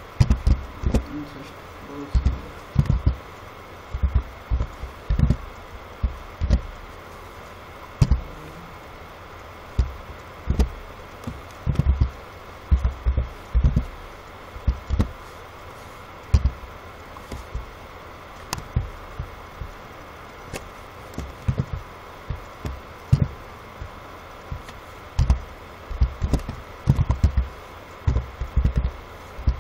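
Computer keyboard being typed on: short, dull clicks in irregular clusters and single strokes, over a steady faint hiss.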